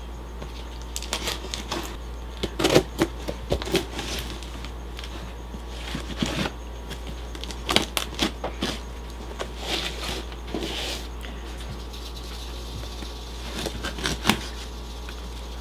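A cardboard shipping box being opened by hand: irregular scrapes, rustles and knocks of cardboard and packing material, in short clusters over a steady low hum.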